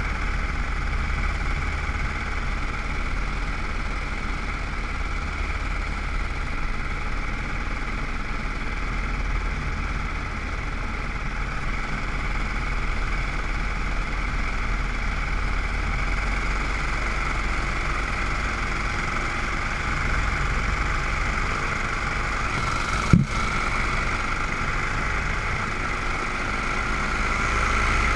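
Steady, even hum of a camera drone's electric motors and spinning propellers in flight, with a single sharp click late on.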